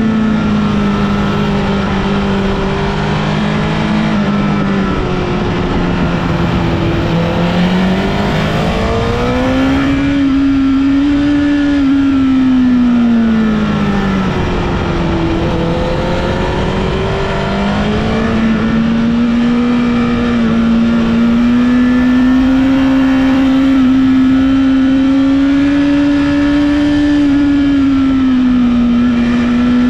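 Honda CBR1000RR inline-four sportbike engine pulling hard on a winding road, its pitch climbing and dropping again and again as the rider rolls on and off the throttle through the bends.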